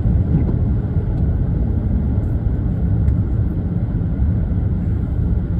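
Car driving on a slushy, snow-covered road, heard from inside the cabin: a steady low rumble of tyre and engine noise.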